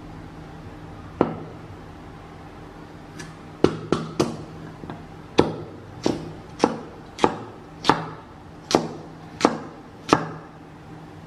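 Knife chopping food on a cutting board: one chop about a second in, then about a dozen sharp chops at a steady pace of one every half second or so.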